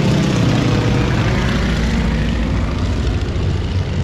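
A low-flying aircraft passing, its engine and propeller noise loud and steady, with a low hum under a broad rushing sound that eases slightly toward the end.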